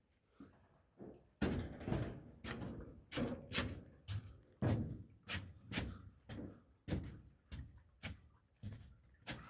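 A regular series of thuds, about two a second, starting about a second and a half in, each a sharp hit with a dull low body.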